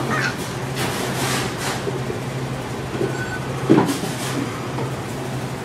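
Steady hum of fast-food kitchen equipment, with scattered clatter and a louder knock just before four seconds in.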